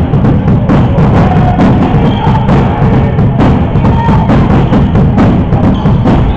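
Music with drums and percussion.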